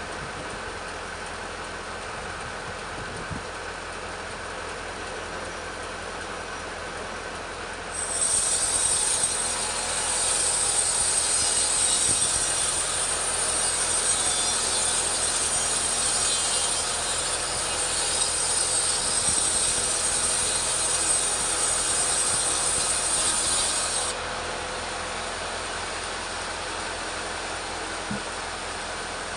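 Petrol chainsaw ripping a teak log lengthwise. It runs at a steady low speed, then about eight seconds in it goes to full revs and cuts for about sixteen seconds with a high whine, before dropping back to the lower speed.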